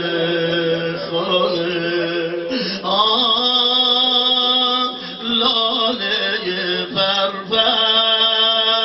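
A man's voice chanting a mourning lament in long, held notes, broken by short pauses for breath.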